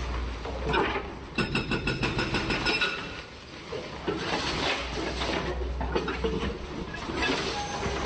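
Excavator's diesel engine running as its arm breaks into a concrete building, with debris crumbling and falling. About one and a half seconds in comes a quick run of metallic clinks and rattles.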